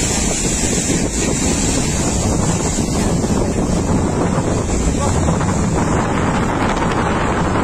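Strong cyclone wind buffeting the microphone in a steady, loud rush, over the sound of surf.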